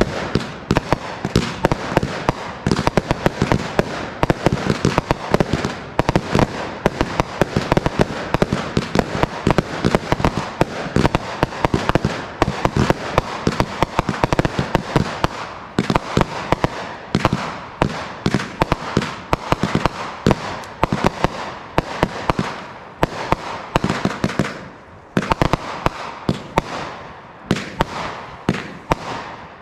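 Consumer aerial firework cakes firing in a dense barrage: launch thumps and sharp bursting reports, several a second, with no break.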